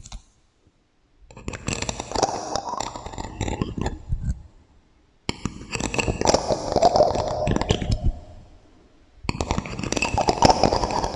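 Rapid tapping and scratching on small objects, processed with an echo effect, in three bursts of about three seconds each with short pauses between.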